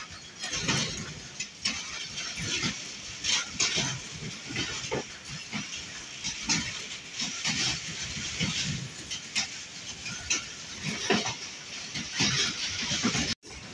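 Passenger train running on the track: wheels clacking and rattling irregularly over the rails under a steady rushing hiss. The sound cuts out abruptly just before the end.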